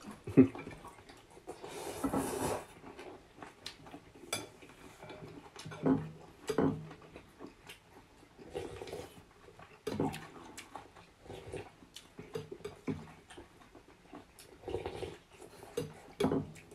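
People eating rice-noodle soup: a long slurp of noodles about two seconds in, then chewing and smaller slurps, with occasional clicks of chopsticks and spoons against the bowls.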